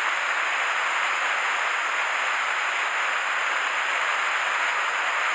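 Waterfall and mountain stream rushing: a steady, even wash of falling water.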